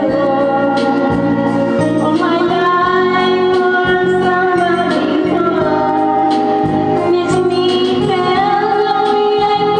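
A woman singing karaoke into a microphone, holding long, sliding notes over a backing track with a steady beat.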